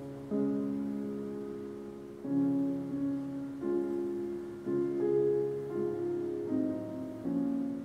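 Slow piano music: sustained chords struck one after another, each fading before the next, about seven changes of chord.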